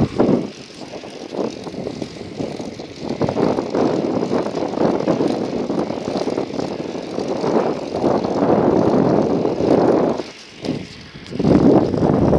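Wind buffeting a phone's microphone while riding along a road, a rough, uneven rush that drops away briefly just after the start and again about ten seconds in.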